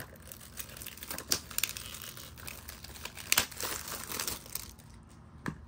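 Plastic shrink-wrap being peeled and torn off a Blu-ray case, crinkling and crackling, with a few sharp cracks.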